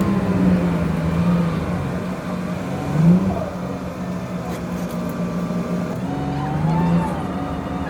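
Bus engine and drivetrain heard from inside the bus: a steady hum whose pitch rises and falls as the bus moves, with a short rise about three seconds in and another near the end.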